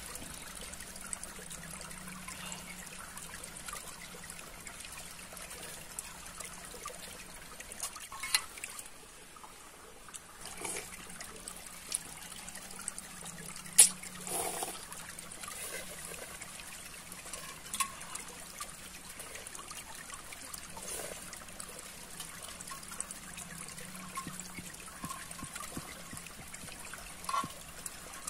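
A spoon clinking now and then against an aluminium mess tin, the loudest clink about halfway through, with noodles slurped between, over a steady trickle of running water.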